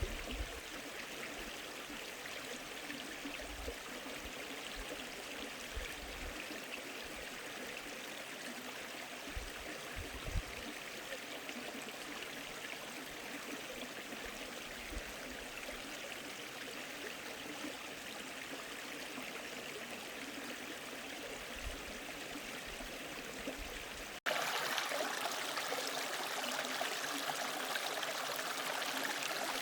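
Mountain valley stream rushing steadily over rocks. About 24 seconds in it cuts abruptly to a louder, brighter rush of water.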